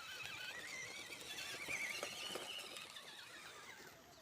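Small electric motor of an RC crawler whining, its pitch wavering up and down with the throttle, rising over the first two seconds and then fading away.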